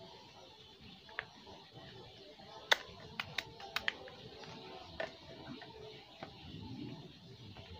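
Sharp plastic clicks and knocks from a hoist's plastic pendant control box being handled and opened: single clicks about a second in and near five seconds, and a quick run of four or five clicks in the middle, the first the loudest.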